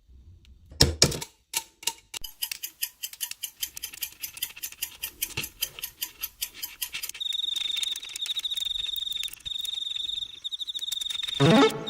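Rapid, even mechanical clicking, about seven clicks a second. About seven seconds in, a high, steady, wavering beep joins it and holds almost to the end.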